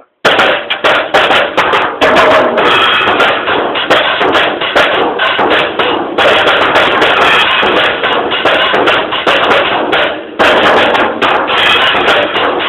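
Drum kit played in a fast solo, a dense run of hits with a short break about ten seconds in, recorded loud and poor-sounding through a mobile phone's microphone.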